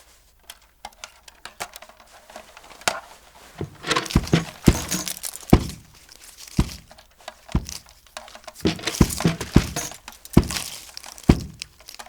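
Foley sound effects: a run of irregular knocks and thuds mixed with short crunching, crinkling rustles, busiest and loudest from about four seconds in to near the end.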